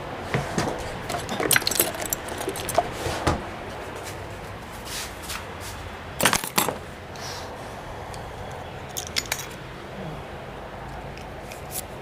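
Small hard objects clicking and clattering in irregular bursts as a barber's tools are handled on the counter, with the sharpest clicks about six seconds in.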